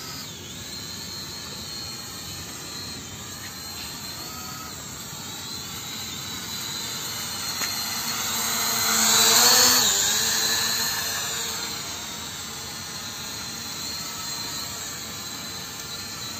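E88 mini quadcopter's propellers and small motors whining and buzzing in flight. The sound grows louder to a peak about nine seconds in and then fades as its pitch drops.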